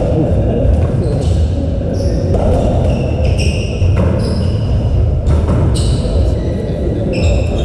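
Racketball rally on a squash court: the ball knocked back and forth by racquets and off the walls, a sharp knock every half second to second and a half, with short high squeaks of players' shoes on the court floor between the shots.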